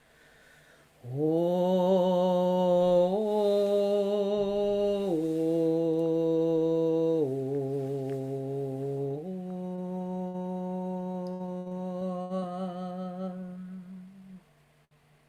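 A woman's voice toning one long, slow, low hum-like note on an open vowel. It scoops up at the start, steps down in pitch twice, returns to the first pitch and fades out near the end.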